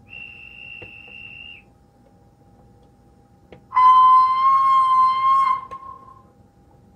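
Sound decoder in a Rapido OO gauge GNR Stirling Single model locomotive playing whistles through its small speaker: first a thin, high, steady whistle for about a second and a half, then, about two seconds later, a loud steam-whistle blast for about two seconds that fades out.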